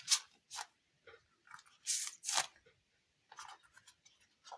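A hand-made squishy toy of silk clay over sponge being squeezed by hand, giving a string of short crackly squishing sounds, the two loudest close together about two seconds in, as air is pushed in and out through the holes poked in its base.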